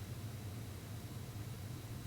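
Canarm CP56 56-inch industrial ceiling fan running steadily: a low motor hum over a faint, even hiss.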